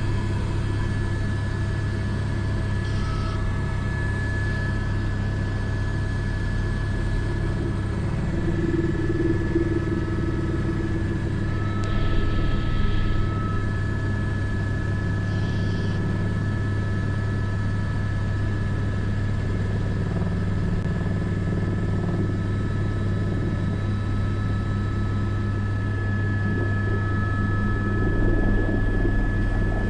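Cockpit noise of an Airbus AS350 B3 helicopter in flight: a steady low rotor and turbine drone with constant high gearbox whine tones, swelling slightly a few times.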